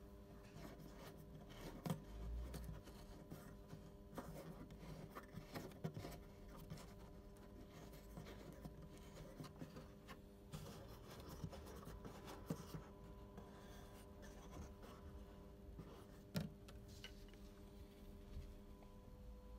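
Faint hand work: scattered small taps, rubs and scrapes over a low steady hum.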